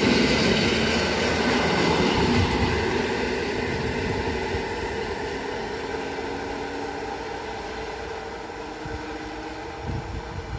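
EN57 electric multiple unit running along the line, its rail rumble fading steadily as it draws away.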